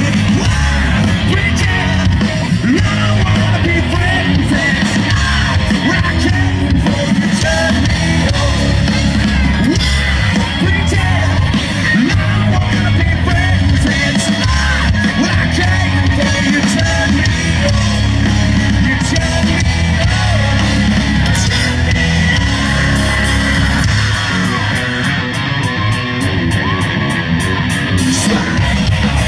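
Live rock band playing a hard-rock song, electric guitars under a lead singer who sings and yells, heard loud and steady through the outdoor stage's PA from within the crowd.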